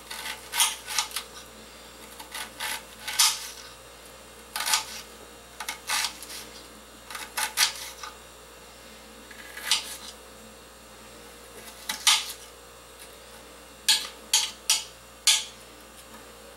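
Kitchen knife dicing onion on a glass cutting board: irregular sharp clicks as the blade strikes the board, coming singly or in quick little runs, with pauses of a second or two between them.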